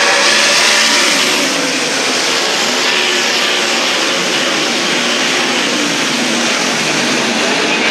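Several winged sprint cars' V8 engines racing at full throttle on a dirt oval, a dense overlapping engine sound whose pitch rises and falls as the cars lift and accelerate.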